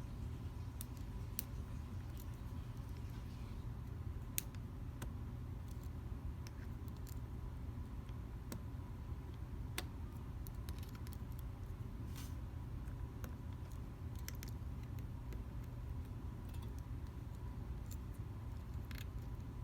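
Scattered small metallic clicks, irregular and a few seconds apart, of a half-diamond pick and pry-bar tension tool working the pin stack of a Brady SafeKey lock during picking, over a steady low hum.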